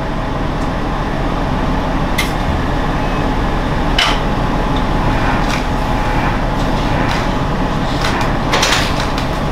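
Steady cabin rumble of a diesel railcar heard from inside, with a low hum and a few sharp clicks and knocks about two, four and eight-and-a-half seconds in.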